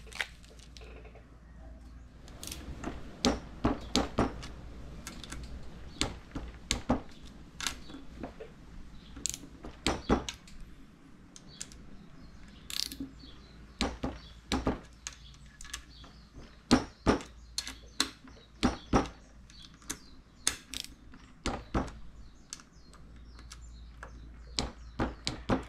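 A wrench tightening the float bowl screws on a carburetor to 50 inch-pounds: a run of sharp metallic clicks and clinks, irregularly spaced and sometimes in quick pairs.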